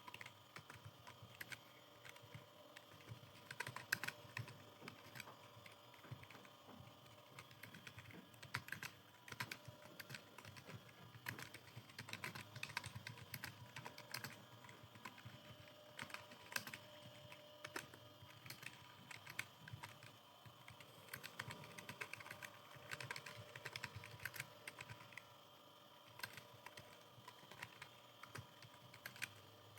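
Computer keyboard typing: a continuous, irregular run of quick key clicks, faint and steady in pace, with short pauses between bursts.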